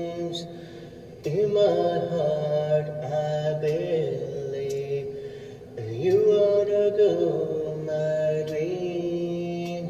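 A man singing a slow melody with long, drawn-out notes. There are short breaks about a second in and again near the six-second mark.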